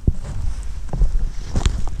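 Handling noise on a quadcopter's mounted action camera as it is picked up and carried by hand: irregular knocks and rubbing, about half a dozen sharp knocks, over a low rumble on the microphone.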